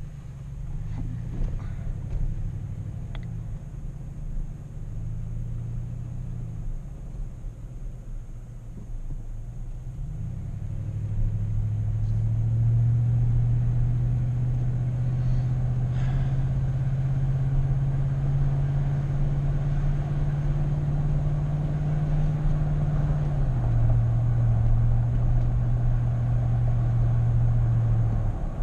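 Car engine and road noise while driving: the engine note rises and falls for the first ten seconds, then grows louder and holds steady, and drops in pitch a few seconds before the end.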